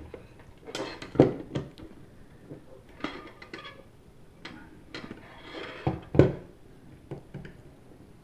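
Plastic hard-drive enclosure being handled and pried at with a small screwdriver: irregular clicks and knocks, the loudest about a second in and about six seconds in.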